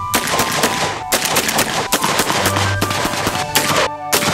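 Benelli M4 Super 90 12-gauge semi-automatic shotgun fired several times in quick succession, with background music playing underneath.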